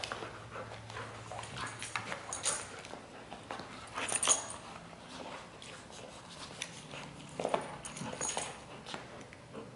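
Two dogs tugging at a toy between them, with low play growls, scuffling, and a few sharp clicks and knocks, the loudest about four seconds in.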